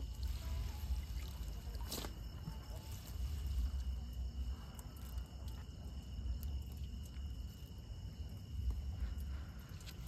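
Quiet riverside night ambience: a low rumble under a steady high-pitched insect drone, with a single sharp click about two seconds in.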